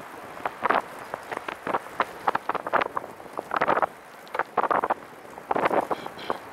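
Riding noise from a recumbent trike moving fast along a paved trail: irregular rushing bursts about once a second over a steady hiss.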